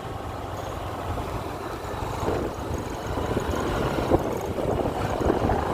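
Motorbike engine running steadily while riding along a hill road, with road and wind rumble.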